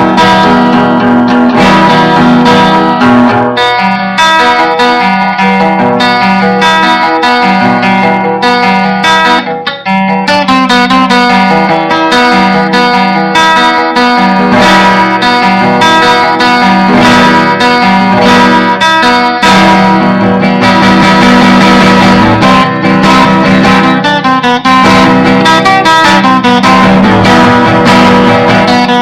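A guitar improvising, plucked and strummed notes played continuously and loud, with the very bad sound quality of a webcam recording.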